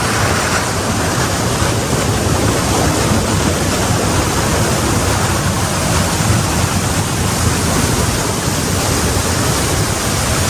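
Loud, steady rush of a waterfall and rapids in a rocky river canyon, with the river running high.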